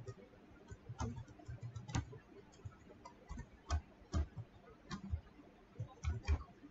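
Typing on a computer keyboard: slow, uneven key clicks, about two a second.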